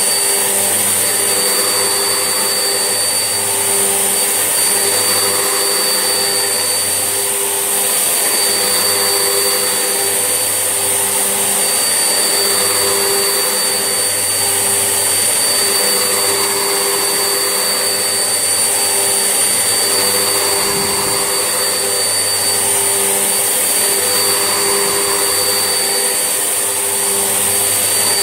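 Vax Essentials vacuum cleaner running steadily, its motor giving a constant high whine over a lower hum that swells and fades every second or so.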